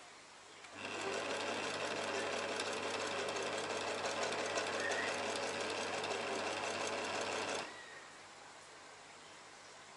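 Singer electric sewing machine running at a steady speed, stitching along the edge of a curtain; it starts about a second in and stops sharply after about seven seconds.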